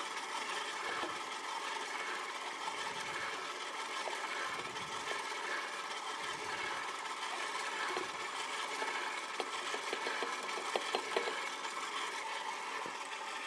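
Electric stand mixer running at low speed, a steady motor hum as it stirs mascarpone cream in its steel bowl. A few light clicks of a spatula against a steel bowl come in near the end.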